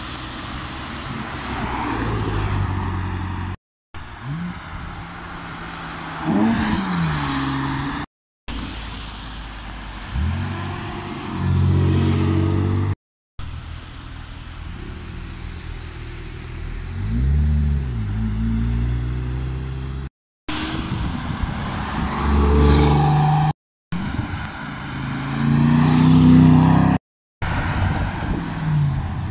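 A string of short clips of cars driving past and accelerating, the engine pitch rising and falling with each car, cut apart by several brief dead silences.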